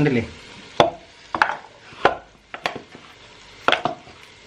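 Hand-kneading of oiled chapati dough in a stainless steel bowl: about six sharp, wet slaps and squelches as the dough is pressed and folded, the noise of the oil in the dough.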